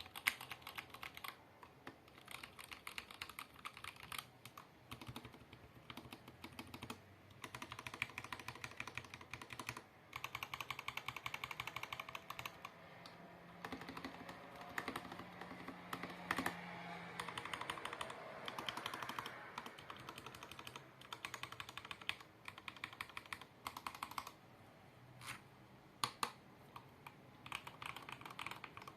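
Custom 75% mechanical keyboard being typed on: fast runs of key clacks with short pauses between them, and a few louder single keystrokes.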